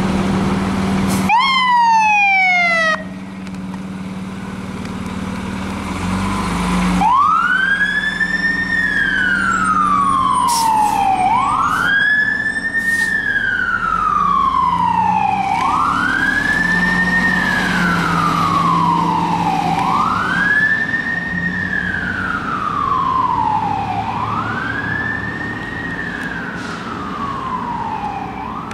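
Fire engine leaving on an emergency call: its engine runs loudly, then a short burst of rapid falling siren yelps about a second in. From about seven seconds the siren wails, each cycle rising quickly and falling slowly, about once every four seconds.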